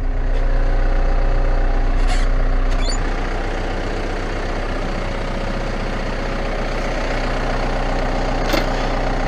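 Caterpillar 924F wheel loader's diesel engine running, easing down to a lower, steady idle about three seconds in, with a few light knocks.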